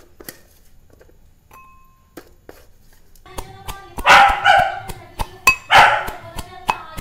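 A steel rod pounding onion pieces in a steel tumbler, starting about three seconds in: quick repeated strikes with the metal cup ringing. A dog barks twice over the pounding.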